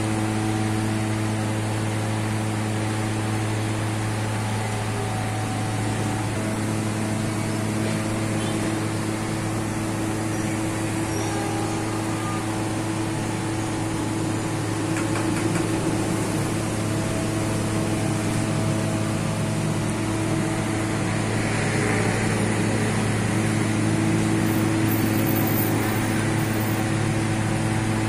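Steady low mechanical hum of bakery machinery, unchanging throughout, with a few faint tones coming and going above it.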